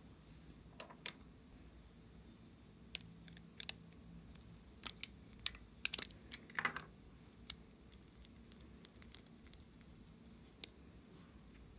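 Small plastic lip balm tubes being handled: scattered sharp plastic clicks and taps, busiest in the middle, with one short scrape about two-thirds of the way through.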